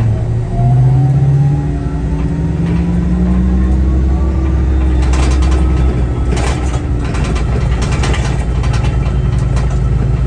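City bus pulling away from a stop, heard from inside the cabin: its drive note and a whine rise in pitch as it accelerates, then settle into a steady low running drone. From about five seconds in, a run of short rattling clicks sounds over it.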